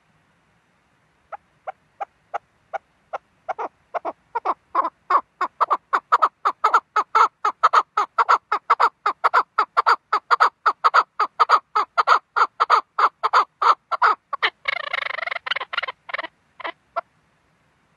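Chukar partridge giving its rally call: a long series of short notes that begin slow and spaced, speed up and grow louder to about four a second, break into a rapid chattering burst near the end, then finish with a few last spaced notes.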